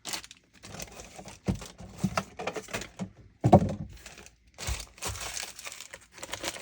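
Plastic packaging crinkling and rustling in bursts as it is handled, with a louder rustle and a soft knock about three and a half seconds in.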